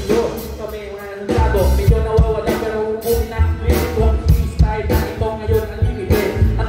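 Live band playing through a PA system: drum kit, electric guitar and bass. The bass and kick drop out for about a second near the start, then the full band comes back in.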